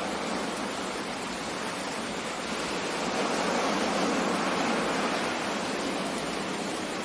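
Steady rain and sea surf ambience: an even rushing hiss that swells for a couple of seconds about three seconds in, then eases back.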